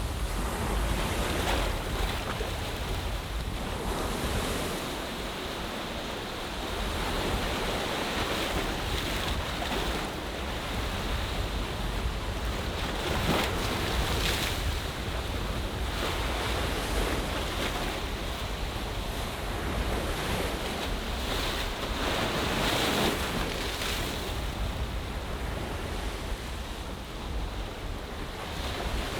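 Ocean waves washing in a seaside bay, a continuous wash that swells and eases every few seconds. Wind adds a low rumble on the microphone.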